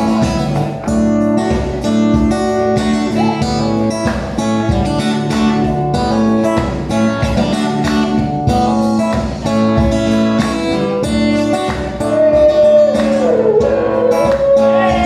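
A band playing music led by strummed guitars, with a steady beat.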